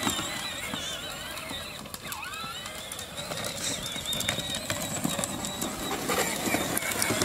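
Battery-powered John Deere ride-on toy tractor driving over dry stubble: a steady high electric-motor and gear whine over rough rolling and crackling from the wheels.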